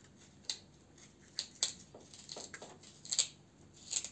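A kitchen knife stabbing into a raw black radish: about six short, crisp crunches at irregular spacing as holes are pierced through the firm root.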